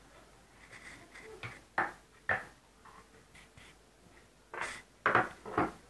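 Scattered clicks and knocks from hands handling an opened analogue multimeter's plastic case and its battery cells during a battery change, a few sharp ones about two seconds in and a cluster near the end.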